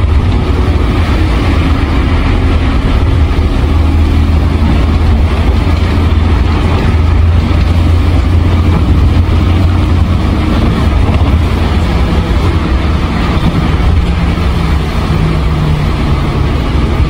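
Isuzu Erga Mio city bus's rear-mounted four-cylinder turbodiesel (Nankai Bus 789, 2KG-LV290N3) idling steadily while the bus stands still, a loud low rumble.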